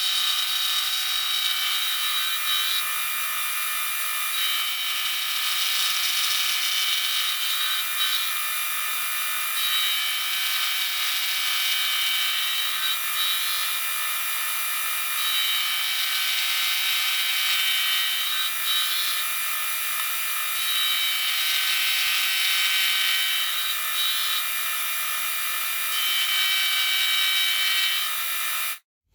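Metal-working machine tool running under cut, a steady whine made of many high tones that shift slightly every few seconds, stopping abruptly near the end.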